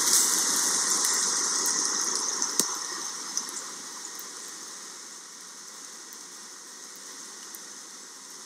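Steady 'shh' of strong wind rushing through the trees, louder at first and easing to a lower, even hiss after a few seconds. A single sharp click about two and a half seconds in.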